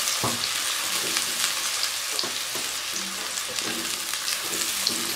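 Finely chopped onions sizzling in hot oil in a kadai, with soft scrapes and knocks of a silicone spatula stirring them every so often.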